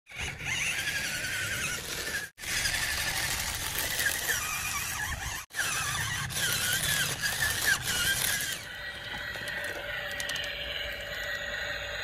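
Small electric gear motor of a toy RC dump truck whining with a wavering squeal as it drives through sand, the sound dropping out briefly twice. After about eight and a half seconds it gives way to a quieter, steady hum.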